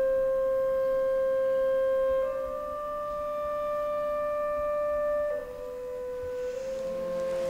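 Background film music: a slow melody of long held wind-like notes that step to a new pitch every two to three seconds, with more instruments joining near the end.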